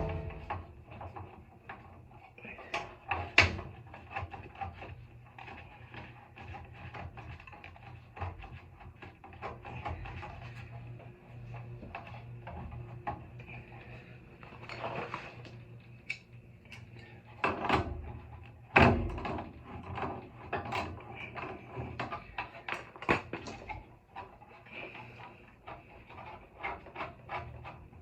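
Irregular clicks, knocks and metallic handling noises as a gas water heater's pilot and thermopile assembly is slid back into the burner compartment and its fittings refitted, with a few louder knocks about 3, 18 and 19 seconds in. A faint steady low hum runs underneath.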